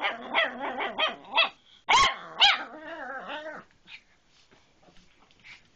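Small dog 'talking': a run of whiny vocal sounds that bend up and down in pitch, with a couple of short sharp yips about two seconds in. It trails off about three and a half seconds in.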